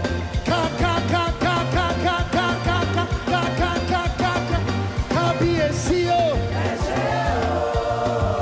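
Live band playing an upbeat gospel dance groove, with a strong, even bass and drum beat and a quick melody of short repeated notes over it, which settles into longer held notes near the end.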